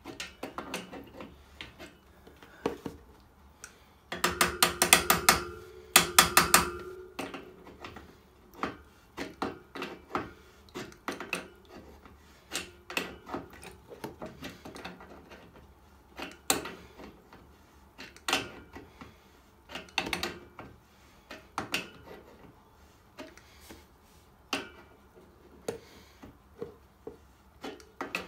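Adjustable spanner working the nut of a radiator valve, tightening it on: scattered metallic clicks and clinks. A louder run of rapid clicking comes about four seconds in and again about six seconds in.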